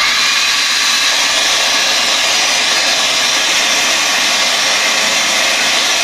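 Bosch GBL18V-120 18 V cordless blower running steadily: a loud, even rush of air from its fan.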